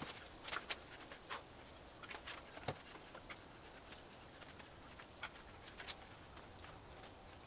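Faint, irregular small clicks and taps, several a second for the first three seconds and sparser after that, with faint short high chirps from about four seconds in.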